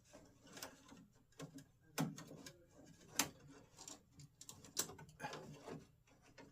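Irregular clicks and light knocks of small latch parts being handled and worked by hand, about a dozen, with a sharper click about three seconds in.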